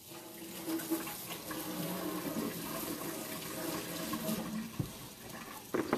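Water running steadily from a tap, turned on at the start and tailing off near the end.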